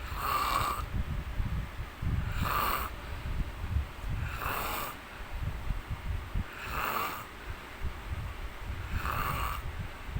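A man snoring in his sleep: a raspy snore comes about every two seconds, five in a row, over a steady low rumble of breath.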